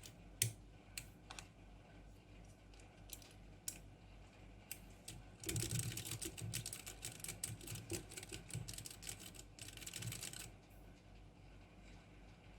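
Typing on a Geek GK64 mechanical keyboard fitted with brown tactile switches: a few separate keystrokes, then a fast run of keystrokes from about five and a half seconds in, stopping about ten and a half seconds in.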